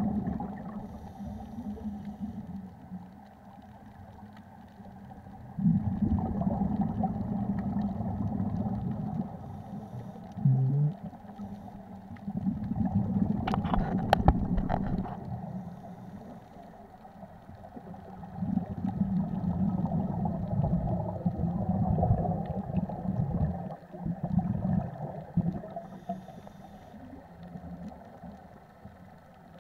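Scuba breathing heard underwater through a wrist-mounted sports camera: long bursts of low, rumbling, gurgling exhaled bubbles lasting several seconds, with quieter stretches between. A couple of sharp clicks come about halfway through.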